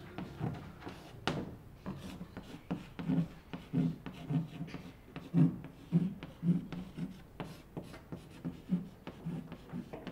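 Chalk on a wooden blackboard as words are written: an uneven run of short taps and scrapes, about two strokes a second.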